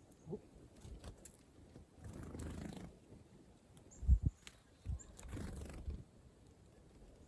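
Low rumbling and a sharp low thump about four seconds in, with a few faint, very short high chirps from small birds.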